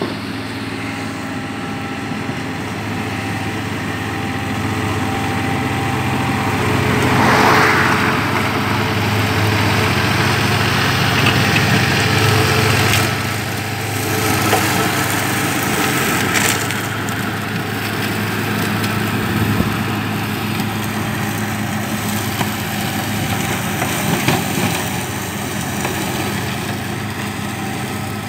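TYM compact tractor's diesel engine running steadily while its rear flail mower mows grass, getting louder in the first half as the tractor passes close. A couple of sharp knocks sound about a quarter and halfway through.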